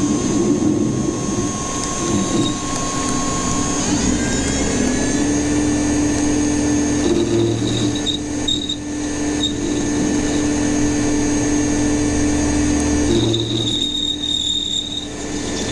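Power tool motor running steadily while cutting down a metal part, its pitch stepping up slightly about four seconds in.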